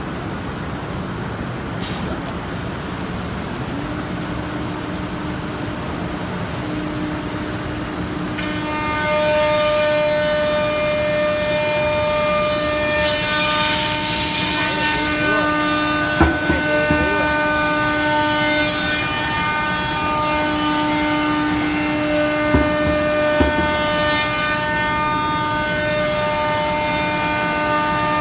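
SMYM-1325R1 single-head CNC router running. Steady machine noise at first, then about eight seconds in the spindle's steady high whine comes in and the sound gets louder. A few sharp knocks come partway through.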